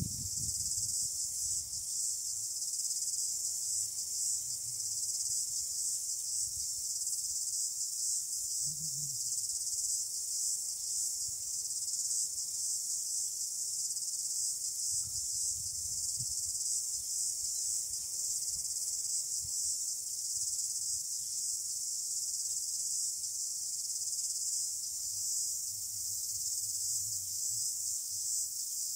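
A steady, high-pitched insect chorus.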